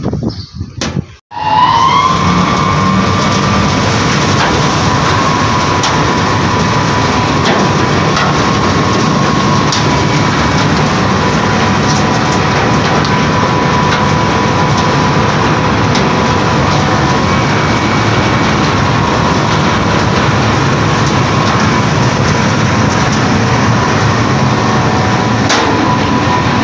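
A large three-phase electric motor with a V-belt drive switched on at the breaker: a couple of clicks, then about a second in it starts suddenly, its whine rising briefly as it comes up to speed. It then runs steadily with a loud, even hum and whine together with the belt-driven machine.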